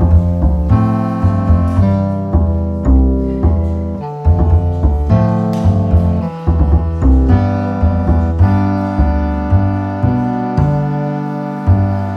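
Background music: piano chords over a plucked double bass line that changes note about twice a second.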